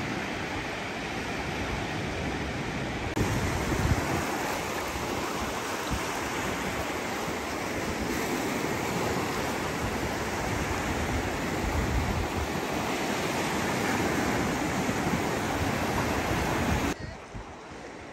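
Sea surf washing up a sandy beach: a steady rush of breaking water with some wind rumble on the microphone. The sound changes abruptly a few times and drops quieter near the end.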